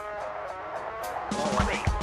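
Background rap-rock music: a sparse passage, then a heavy drum beat and bass come in about a second and a half in.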